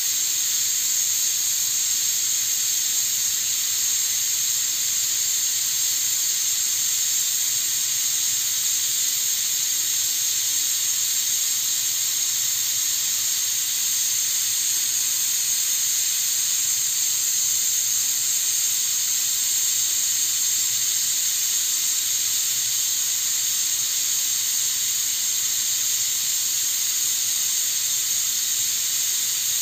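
Stovetop pressure cooker's steam valve venting, a steady high-pitched hissing whistle of escaping steam that holds unbroken: the cooker is up to pressure and releasing steam through the valve.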